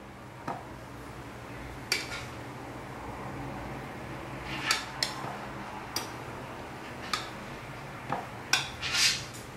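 Metal spoon clinking and tapping against a glass jar and a mixing bowl while oat bran is scooped out and tipped in, in irregular taps roughly once a second over a low steady hum.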